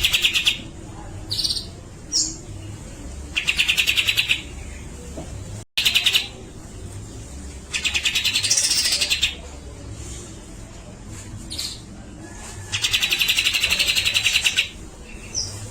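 Grey-cheeked bulbul (cucak jenggot) calling in loud rattling bursts of rapid notes, four bursts each a second or two long about four seconds apart, with short single chirps in between.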